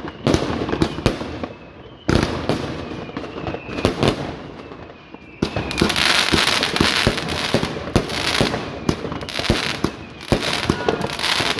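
A 120-shot firework compound cake firing: a rapid string of sharp shots and bangs. About halfway through, a louder, dense hiss and crackle joins them.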